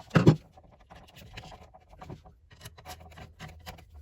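Handling noise from electrical wires and a GFCI receptacle being worked: a loud knock just after the start, then a run of small scratches and clicks as the wires are pushed into the back of the device.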